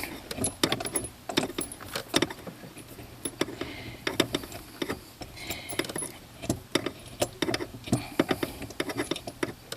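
Ratchet and socket working a tight bolt loose: a run of irregular metallic clicks and clinks.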